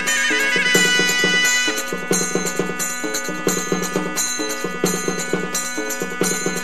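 Devotional music: fast, even strokes on a dapla frame drum over held drone tones. A wavering melody line fades out in the first couple of seconds.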